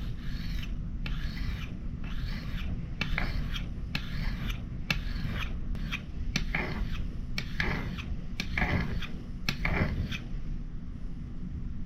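A steel fire striker's edge being rubbed on a medium-grit sharpening stone: a run of rhythmic scraping strokes, about one or two a second, that stop near the end.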